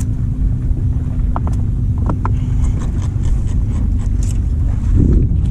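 Steady low rumble of wind buffeting the microphone aboard a fishing boat at sea, with a low hum that stops about three seconds in and a few light clicks in the middle.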